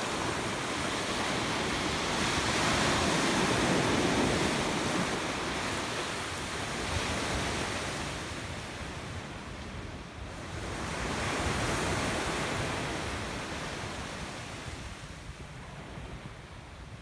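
Sea waves washing in, a steady rush that swells twice and eases off in between.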